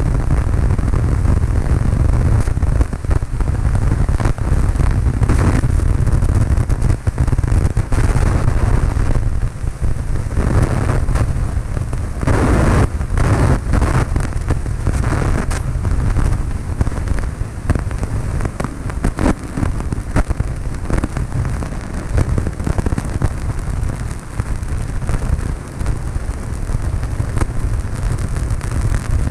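Cabin noise of a Cessna 152 in flight: the loud, steady drone of its four-cylinder Lycoming engine and propeller, with a constant crackle over it.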